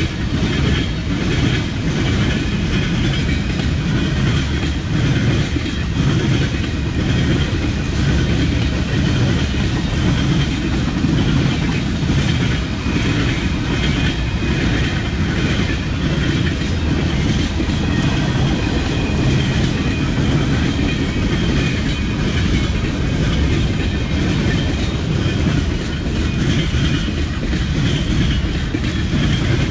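Train rolling past, a steady loud rumble with the clickety-clack of wheels over rail joints.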